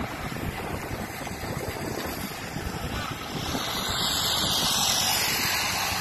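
Wind rushing over the microphone of a camera carried on a moving bicycle, a steady hiss-and-rumble that grows louder a little past halfway.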